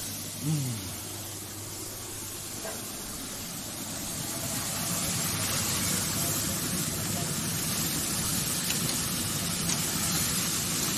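Marinated meat sizzling on a hot grill grate: a steady hiss that grows louder about four seconds in.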